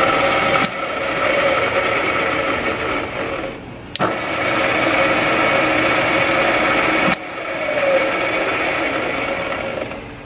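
Trak DPM bed-type CNC vertical milling machine's spindle drive running with a steady whine. It is cut off sharply a little under a second in and winds down, then a click switches it back on at full level about four seconds in. It is cut off again about seven seconds in and winds down to near quiet at the end.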